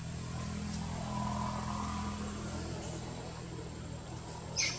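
Steady low hum of a motor vehicle engine, swelling over the first couple of seconds and then easing. Near the end there is one short, high, falling squeak.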